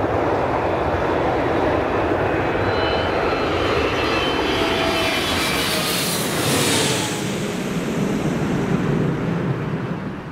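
Boeing 757-200's Rolls-Royce RB211-535E4 turbofans passing low overhead: a loud, steady jet roar with a whine that slides down in pitch as the aircraft nears. The hiss peaks about six seconds in as it goes over, then the roar carries on and eases slightly near the end.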